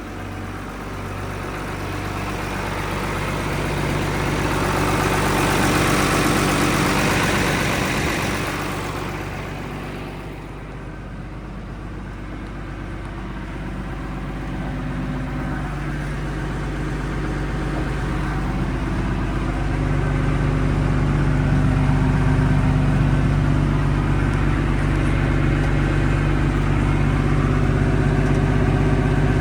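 John Deere 710D loader backhoe's 115 hp diesel engine running. The sound swells for a few seconds, eases near the middle, then settles louder and steadier with a slightly higher engine note.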